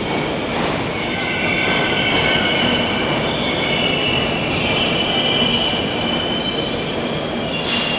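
Moscow Metro train moving through an underground station: a steady rumble with high squealing tones from the wheels that shift slightly in pitch.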